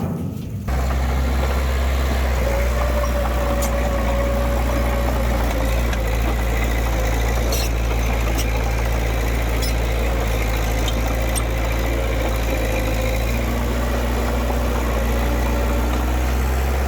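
Diesel engine of heavy earthmoving machinery running steadily at a constant low speed, with a few sharp light clicks over it. There is a brief break just after the start.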